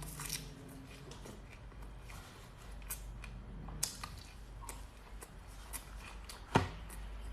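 Eating sounds: chewing and biting, with scattered small clicks and one sharp click about six and a half seconds in.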